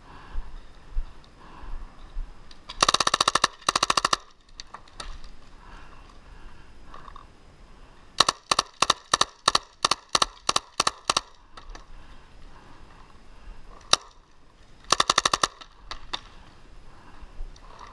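Tippmann 98 Custom paintball marker firing on full-auto: a fast burst about three seconds in, then a string of about ten shots at roughly three a second, a single shot, and another fast burst near the end.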